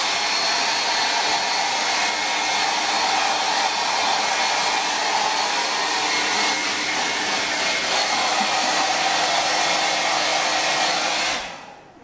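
Hair dryer blowing steadily while drying wet clothes, then switched off near the end, its noise dying away over about half a second.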